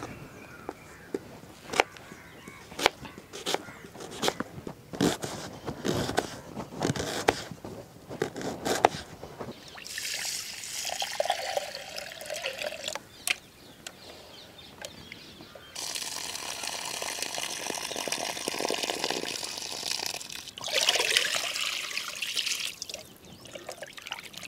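Kitchen knife chopping onion on a plastic cutting board, sharp taps at an uneven pace. About ten seconds in, water starts being poured over rice in a clay pot, in several pours with splashing, as the rice is rinsed by hand.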